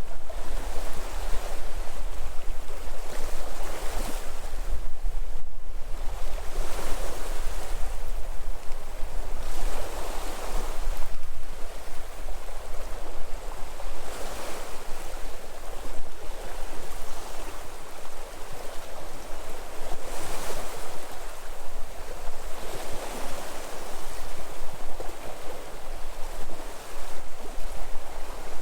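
Sea waves washing onto the shore, the surf swelling and falling back about every three to four seconds, over a steady low rumble.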